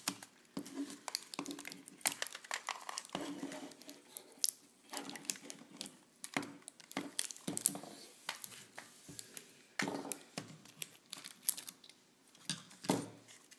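Adhesive tape being peeled off its roll, torn and pressed around the body of a plastic airsoft pistol, giving irregular crinkling, crackling and ripping sounds.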